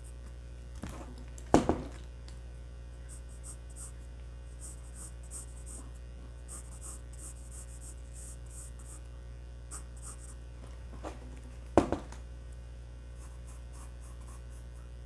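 Graphite pencil making short, faint scratching strokes on drawing paper over a steady low electrical hum, with two sharp knocks about ten seconds apart.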